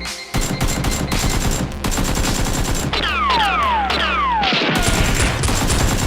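Rapid, dense bursts of automatic gunfire sound effects, with several falling whines about halfway through.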